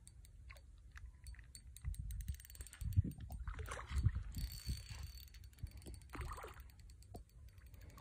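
Spinning fishing reel clicking rapidly for about the first four seconds while a hooked carp is played on a bent rod, with wind rumbling on the microphone.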